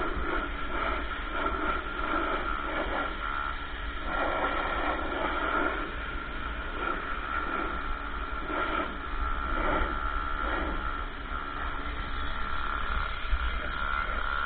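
Ryobi RY14122 electric pressure washer running, its pump motor giving a steady high whine. The water jet sprays against a truck, the spray hiss rising and falling as the wand sweeps back and forth.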